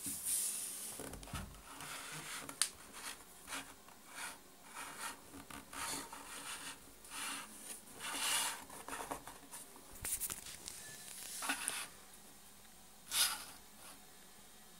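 Hands handling plastic: irregular rustling and rubbing with small clicks, stopping about 12 seconds in, with one more short rustle about a second later.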